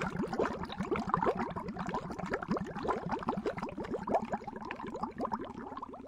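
Water bubbling steadily: a dense stream of air bubbles, each a quick blip gliding upward in pitch.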